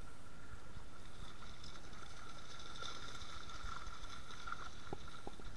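Steady low rumble of wind and movement on a body-worn camera's microphone while wading through a shallow river, with a faint steady high hum and a couple of light ticks near the end.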